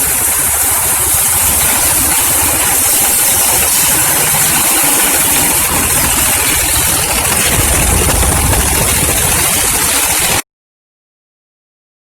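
A 36-blade chopping machine running with a steady, loud, noisy drone. It cuts off abruptly about ten seconds in.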